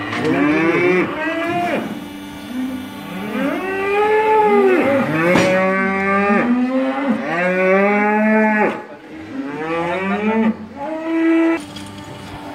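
Holstein dairy cows mooing, a series of long calls that rise and fall in pitch, one after another and at times overlapping, until shortly before the end, over a steady low hum.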